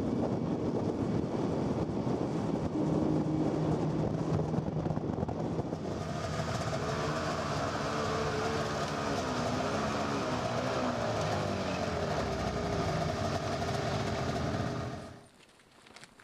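Snowmobile engine running on the move, with track and wind noise. Partway through its note wavers up and down as the sled slows, then the sound cuts off about fifteen seconds in.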